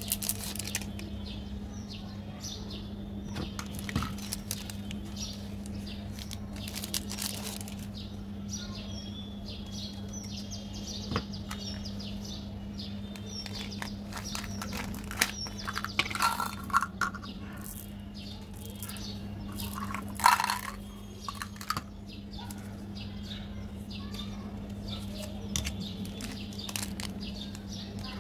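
Plastic candy wrappers crinkling and tearing as hands handle and open them, in short scattered crackles, with louder tearing bursts a little past halfway and about two-thirds through. A steady low hum runs underneath.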